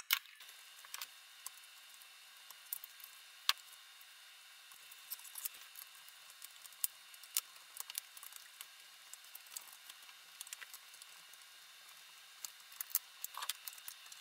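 Faint, scattered small clicks and taps of tools and plastic parts being handled on a laptop chassis, over a steady faint hiss.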